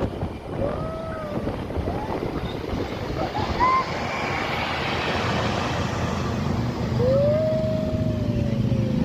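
Buses passing on the road, with a swell of tyre and engine noise in the middle and a low engine hum near the end. Over it come clear gliding tones from a bus's telolet basuri horn: one short rise and fall near the start, a brief higher note about three and a half seconds in, and a long note starting about seven seconds in that slides slowly down.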